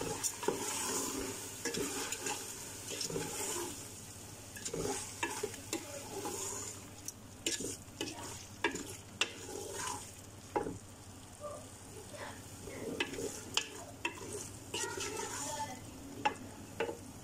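Wooden spoon stirring chunks of meat in thick tomato sauce in an aluminium pot, with irregular scrapes and knocks of the spoon against the pot, over a steady sizzle of the sauce frying.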